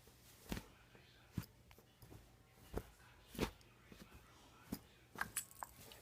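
A handful of sharp taps and knocks, irregularly spaced, with a low steady hum underneath.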